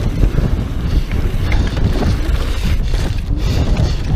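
Wind buffeting a mountain bike's mounted camera microphone during a fast downhill run on a dirt trail, over a low rumble of tyres on the dirt and scattered clicks and knocks from the bike rattling over bumps.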